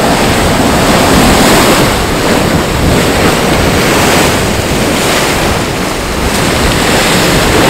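Geyser erupting: a loud, steady rush of steam and spraying hot water.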